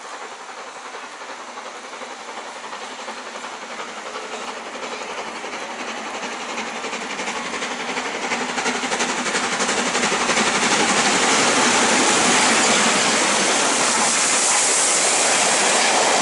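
Steam locomotive hauling a train through a station at speed: a hissing, rapidly beating exhaust grows steadily louder over about ten seconds as it approaches, then stays loud as the engine and its coaches rush past close by.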